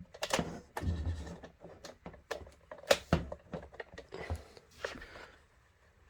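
Irregular knocks, clicks and rustling of things being handled and moved about, with one sharp knock about three seconds in.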